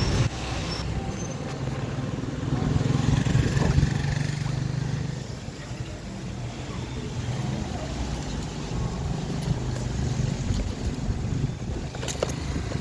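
A motor vehicle's engine running close by as a steady low hum, loudest about three to four seconds in, then easing off. A few sharp clicks come near the end.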